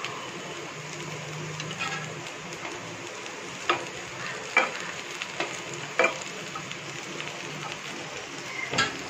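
Colocasia (taro root) cubes frying in oil and ghee in a nonstick pan with a steady sizzle, while a metal slotted spatula stirs them and knocks sharply against the pan several times.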